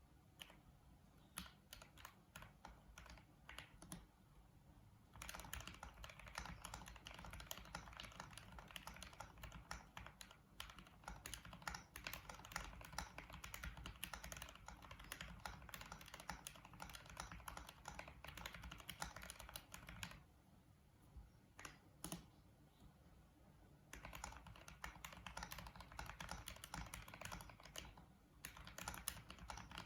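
Typing on a 40% mechanical keyboard with Gateron Pro Red linear switches and MT3 keycaps: a few single keystrokes at first, then fast runs of key clacks, thinning out for a few seconds past the middle and picking up again.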